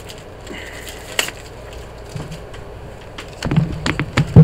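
A cardboard product box handled close to the microphone: a few faint clicks, then from about three and a half seconds in a quick run of loud knocks and rustles as the box is brought up and turned over.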